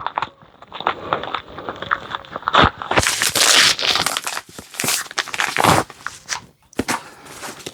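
Shipping packaging being torn open and crinkled by hand: scattered rustles and rips, with the longest, loudest tear about three seconds in and another shorter one near six seconds.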